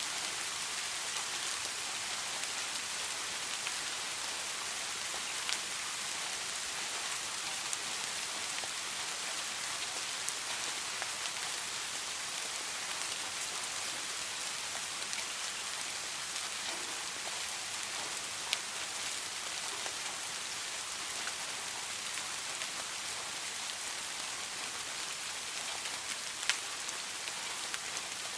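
Steady rain falling in a forest: a dense, even hiss of rainfall, with a few single sharper drops standing out now and then.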